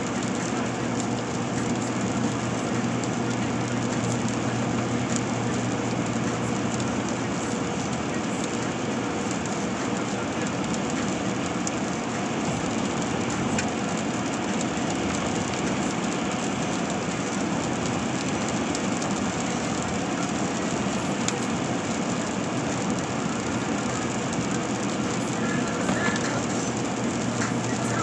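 Steady road noise inside a car's cabin while cruising: tyres hissing on wet pavement over a constant low engine and drivetrain drone.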